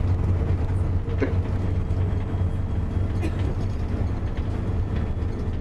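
Shuttle bus under way, heard from inside the cabin: a steady low drone of engine and road noise.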